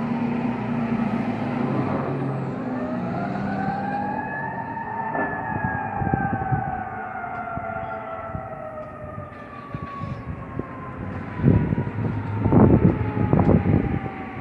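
Fire engine siren sounding one long wail, rising for about five seconds and then slowly falling in pitch, over the low rumble of the engine. Several short, loud blasts come near the end.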